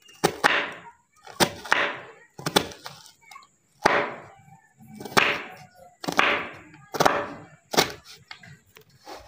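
Kitchen knife shredding a fresh cabbage on a wooden chopping board: a crisp crunch with each cut through the tight leaves, about nine cuts at roughly one a second.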